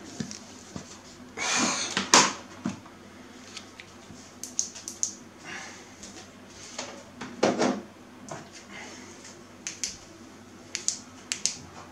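Keyboard case being handled and pried at: scattered sharp plastic clicks and taps, some in quick clusters, with two longer scrapes about one and a half and seven and a half seconds in.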